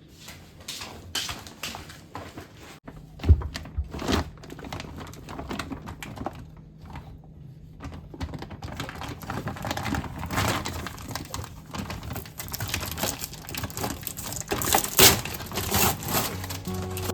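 Many irregular clicks, knocks and light rustling, like items and packaging being handled, busiest towards the end, over faint background music.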